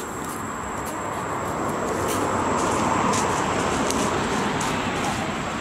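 A motor vehicle passing on a nearby road: a rushing noise that swells to its loudest about three seconds in, then eases off.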